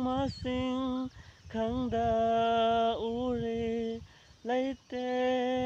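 A man sounding a run of long held notes into his cupped hands, nearly all on one steady pitch, each up to about a second long and sliding up as it starts, with short breaks between them.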